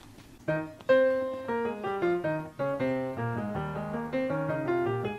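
Background music: a piano-like keyboard plays a quick melody of struck notes over lower bass notes, starting about half a second in.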